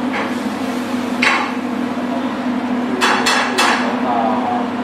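Commercial kitchen clatter: a sharp metallic clank about a second in, then three quick clanks around three seconds in, the last one leaving a brief ringing. A steady hum of kitchen equipment runs underneath.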